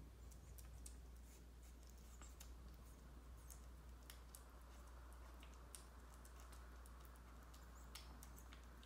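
Kitten licking and lapping food off a plate: faint, irregular wet clicks several times a second, over a low steady hum.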